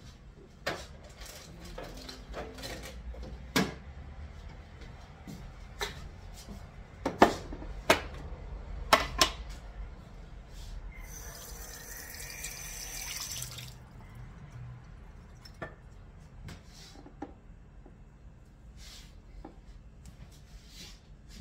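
Kitchen work at the counter: sharp knocks and clinks of utensils and dishes, the loudest a quick run of knocks around the middle. Just after them comes a steady hissing rush lasting about three seconds.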